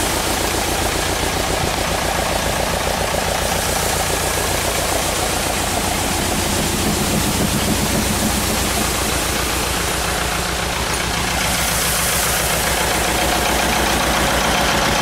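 Tractor engine running steadily, driving the field sprayer's pump through the PTO shaft, with a continuous hiss of water spraying from the boom nozzles: the repaired sprayer working properly on a water test.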